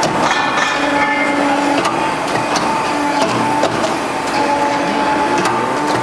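Hydraulic crimping machine working a corrugated metal roofing sheet: a steady mechanical clatter of irregular knocks and clicks, with a pitched hum that comes and goes.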